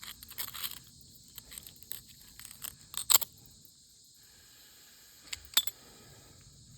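Steady chirring of crickets and other insects, with scattered clicks and a few sharp knocks, the loudest about three seconds in and again about five and a half seconds in, from a knife cutting a bluegill into bait pieces.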